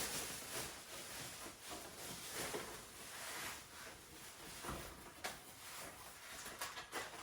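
Faint rustling of packaging with scattered light clicks and ticks as a parcel of small kit parts is unpacked by hand.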